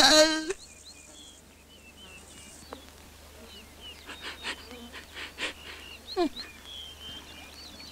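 Cartoon soundtrack: a short, loud pitched squeal right at the start, then faint chirping like small birds, with scattered clicks and rustles.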